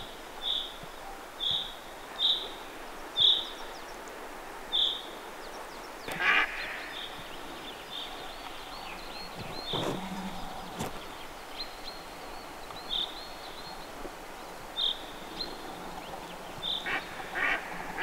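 Ducks quacking in short runs, once about six seconds in and again near the end, over a small bird repeating a short high call about once a second.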